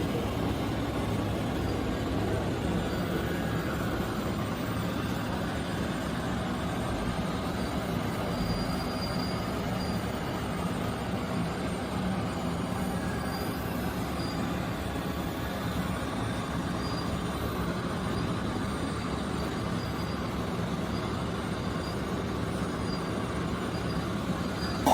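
Radio-controlled construction machine running: a steady mechanical rattle and rumble of small motors and gearing with no change in pace.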